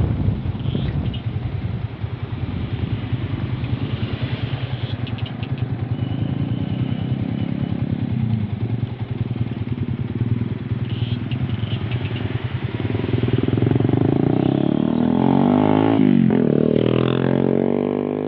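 Motorcycle engine running on the road, with road noise. Near the end an engine note rises and falls in pitch.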